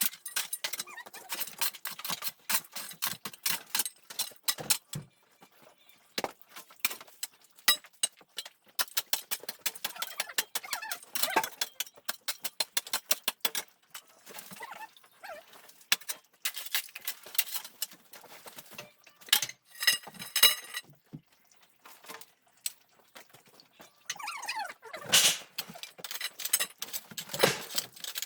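Irregular clattering and knocking of hard objects being handled, with short pauses, and a brief high squeak about twenty seconds in.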